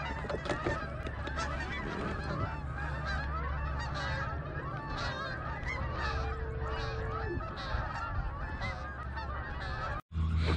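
A flock of geese honking, many overlapping calls at once, over a steady low hum. The sound cuts out for a moment near the end.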